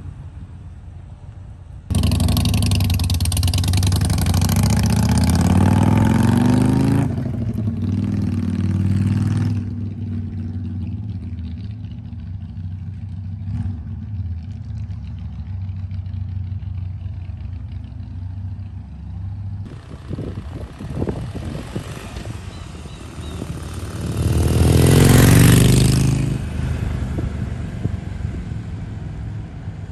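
Harley-Davidson Iron 883's air-cooled 883 cc V-twin starts sounding suddenly about two seconds in and rises in pitch as the motorcycle accelerates, then runs steadier and more distant. Near the end it comes past loudly, its pitch rising and then falling as it goes by.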